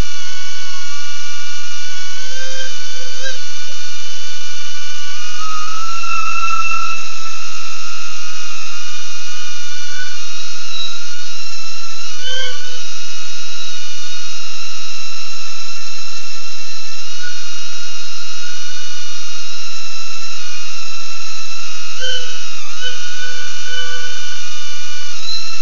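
BetaFPV Aquila16 FPV quadcopter's motors and propellers whining steadily in flight, the pitch dipping and rising briefly a few times as the throttle changes.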